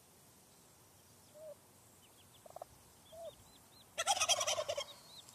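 Wild turkey hen calling her poults out of hiding with the all-clear: a few soft low notes, then about four seconds in a loud, fast rattling call lasting under a second. The poults peep high and thin, again and again.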